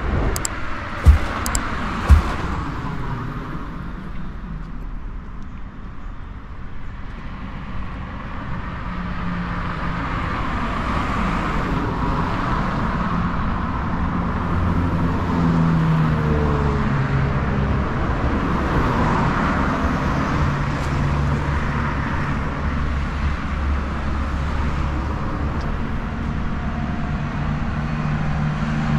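City street traffic: car and vehicle engines running close by, the noise building from several seconds in and then staying steady. Two sharp knocks about a second apart come near the start.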